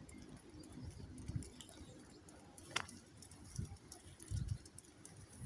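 Faint, irregular muffled thumps of footsteps and handling during a walk on an asphalt path, with light ticking and one sharp click about three seconds in.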